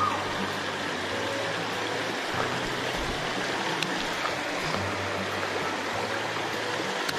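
Shallow stream running over a stony bed: a steady rush of flowing water.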